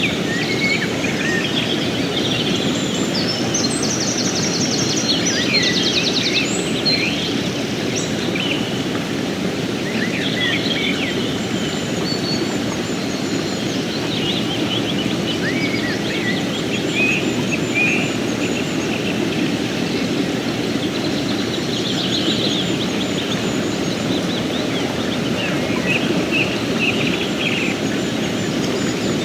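Fast mountain river rushing steadily over rocks, with songbirds chirping and warbling above the water throughout, including a rapid trill a few seconds in.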